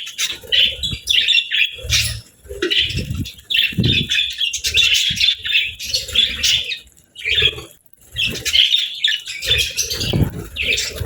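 Several budgerigars chattering: quick, busy high chirps and warbles with only brief pauses, over low soft thuds.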